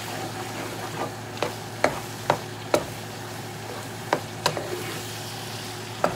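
Ground beef and tomato paste sizzling in a frying pan while being stirred, with about seven sharp knocks of the spoon against the pan between one and five seconds in.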